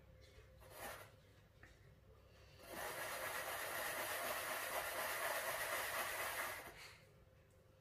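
A metal ring mould rubbing and scraping on a floured wooden cutting board as a curd patty is shaped in it: a short scrape about a second in, then a steady rubbing scrape for about four seconds that stops abruptly.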